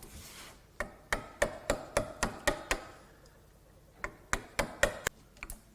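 A hammer tapping a chisel to chop out the waste in a housing dado: two runs of quick, sharp taps, about three a second, with a pause of about a second between them.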